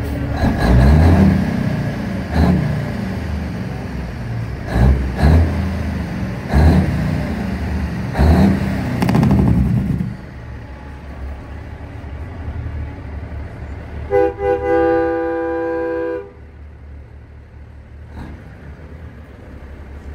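Heavy truck diesel engines revving in several loud bursts, then a semi truck's multi-chime air horn: a couple of short toots and then one held blast of about two seconds, several tones sounding together as a chord.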